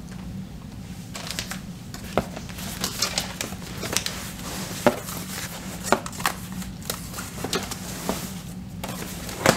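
Hands rummaging through a cardboard box of clothing, pulling garments out: an irregular run of rustles and small sharp clicks and crinkles, a few of them louder.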